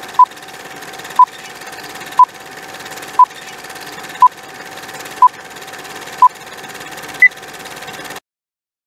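Film-leader countdown sound effect: a short beep once a second over a steady hiss and crackle, the last beep higher pitched, then it cuts off to silence.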